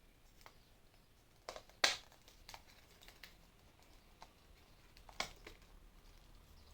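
Scattered small clicks and taps of plastic anime-figure parts being handled and fitted together, about half a dozen, the loudest about two seconds in and another strong one about five seconds in.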